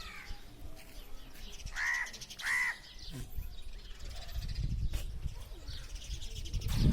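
A crow caws twice in quick succession about two seconds in, each call a short arched cry. A low rumbling noise follows in the second half.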